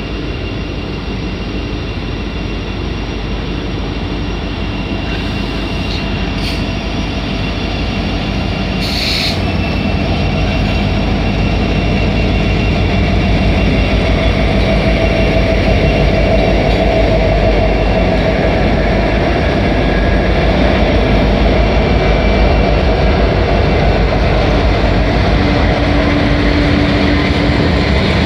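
Norfolk Southern freight train with SD70ACe and Dash 8-40CW diesel locomotives passing close by. The engines and wheels grow steadily louder over the first half as the locomotives approach, then hold at a steady rumble and rail noise as the cars roll past.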